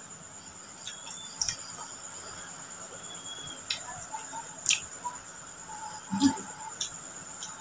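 Mouth sounds of a man eating grilled chicken and rice by hand: sharp lip smacks and clicks of chewing every second or so, the loudest about six seconds in. A steady high-pitched insect drone runs underneath.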